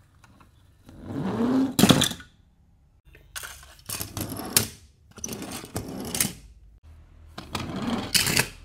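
Toy cars rolling one after another across a plastic board: four runs of rattling, whirring wheel noise, each about a second long and ending in a sharp click.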